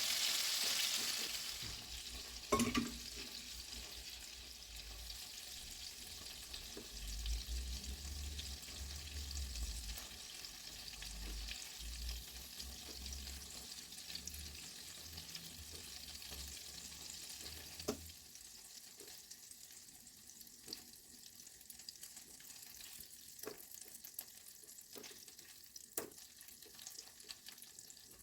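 Food sizzling in a frying pan, loudest for the first couple of seconds and then settling to a faint steady sizzle that drops further near the end. Occasional clicks and knocks of utensils or cookware.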